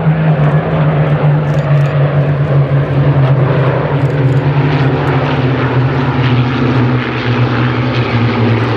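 Formation of Spitfires and Hurricanes flying past, their Rolls-Royce Merlin V12 piston engines making a loud, deep drone whose pitch falls slowly as they pass.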